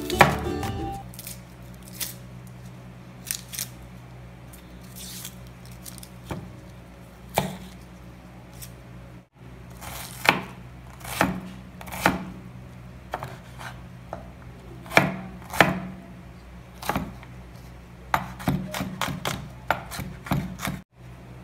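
Chef's knife chopping onion on a wooden cutting board: single sharp knife strikes at irregular intervals, then a quicker run of chops near the end.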